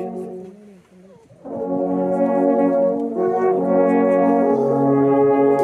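Ensemble of alphorns playing together in sustained chords. A held chord dies away, and after a short break the horns come back in together about a second and a half in with long held chords that shift twice.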